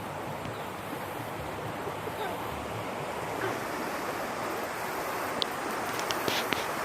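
Rushing floodwater running high after heavy rain, a steady wash of water noise that grows slightly louder, with a few sharp clicks near the end.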